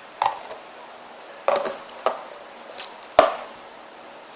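Four sharp knocks of hard objects on a hard surface, each with a brief ring; the last, about three seconds in, is the loudest. These are play-dough tools or tubs being handled while white dough is taken out.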